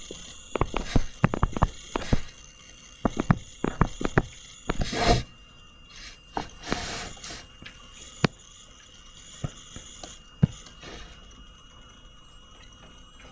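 Stylus tapping and scratching on a tablet screen during handwriting: quick irregular clicks for the first few seconds, then only a few scattered taps, with a short rustle about five seconds in.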